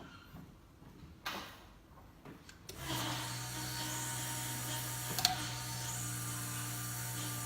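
A few faint clicks and a rustle, then about three seconds in a steady electric hum starts and holds: the electric fuel pump of a Holley Sniper EFI system priming at key-on, with one sharp click partway through.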